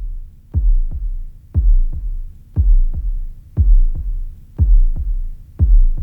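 Electronic music built on a deep bass double beat: two thumps close together about once a second, like a slow heartbeat.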